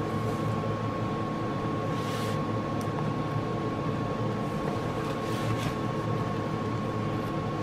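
Steady machine hum with a thin high whine, and two soft rustles about two and five seconds in.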